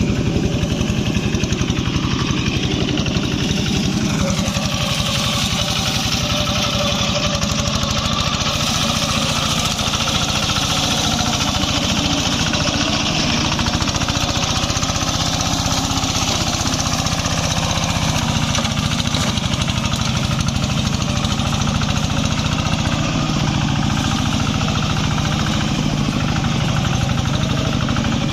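Small engine of a grass-cutting machine running steadily in swampy, muddy ground, its rapid firing pulses continuous.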